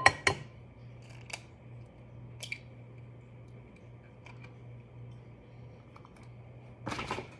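An egg being tapped and cracked on the rim of a bowl: a few sharp, ringing clicks at the start, scattered light clicks, then a short crackling burst of shell near the end. A steady low appliance hum runs underneath.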